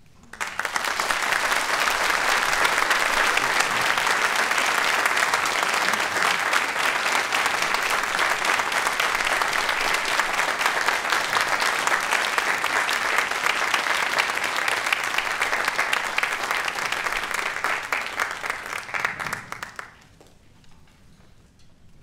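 Audience applauding: dense, steady clapping that starts suddenly and dies away about twenty seconds later.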